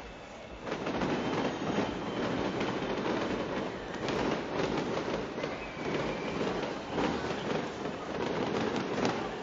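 Fireworks display going off in a rapid, continuous barrage of bangs and crackling, building up sharply a little under a second in.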